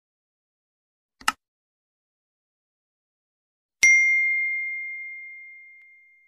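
A short click about a second in, then a single notification-bell ding from a subscribe-button animation as the bell icon is pressed. The ding rings out at one clear pitch and fades away slowly.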